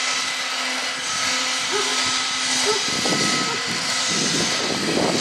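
A steady machine drone with a faint hum. From about three seconds in, a rougher, uneven rumble joins it.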